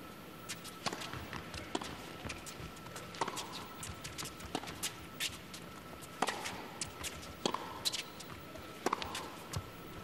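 Tennis on an indoor hard court during a point: irregular sharp knocks of racket strikes and ball bounces, with players' footsteps on the court.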